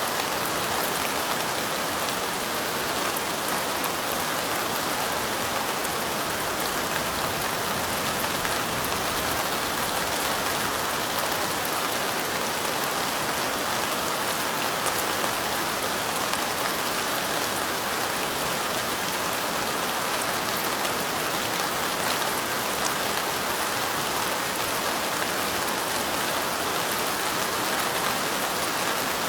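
Light rain falling steadily, an even, unbroken wash of rain sound with no pauses or single loud drops.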